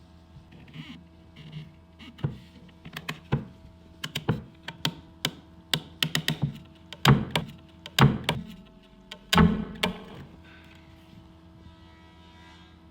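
Teak workpieces handled and knocked together, a run of irregular wooden clicks and knocks with three heavier thunks about two-thirds of the way through, over a steady electrical hum.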